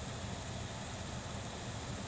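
Steady background noise: a low hum with an even hiss above it, and no distinct event.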